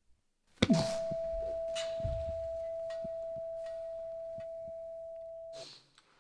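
A boxing ring bell struck once, ringing one clear tone that fades slowly for about five seconds and then cuts off suddenly.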